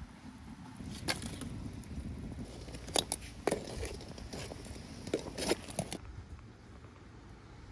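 Wood fire crackling, with a few sharp pops scattered through it over a low, steady rumble.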